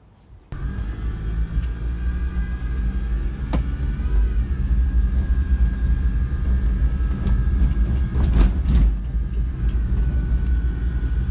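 A vehicle driving: a steady low road-and-engine rumble that cuts in about half a second in, with a few short knocks about a third of the way in and again about three quarters of the way in.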